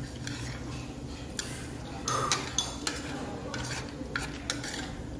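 A string of light, separate clicks and clinks as a small metal pick and a raw egg's shell are handled, over a low, steady background hum.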